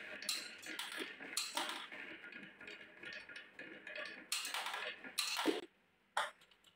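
Glass marbles clicking and clattering as they roll down a wooden wave-track, drop into a plastic toy loader's bucket and bounce across the floor. The clicks come thick and fast at first, thin out, come in a last flurry about four to five seconds in, then stop suddenly with one stray click after.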